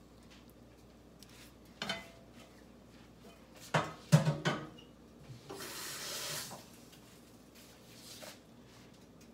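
Kitchen cookware and utensils clattering: a couple of light knocks about two seconds in, a loud cluster of sharp clatters around four seconds, then about a second of steady hissing noise.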